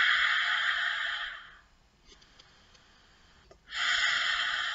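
A woman's deep, noisy breaths through a wide-open mouth: a long rush of breath fades out about a second and a half in, and after a quiet pause a second one starts near the end.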